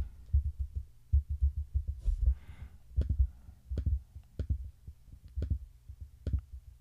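Computer keyboard typing and mouse clicks: a run of quick, low taps that thins out into separate, sharper clicks.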